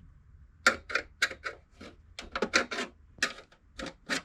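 Plastic front bezel of a Lenovo ThinkCentre small-form-factor desktop being pried off: a run of irregular sharp clicks and snaps, several a second, as its clips release.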